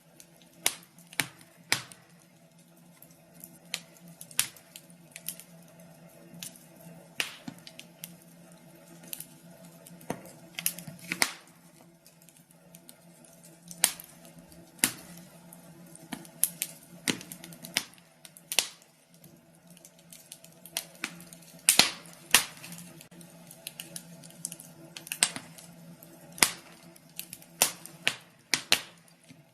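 Wood fire crackling in a fireplace: irregular sharp pops and snaps, some much louder than others, over a faint steady low hum.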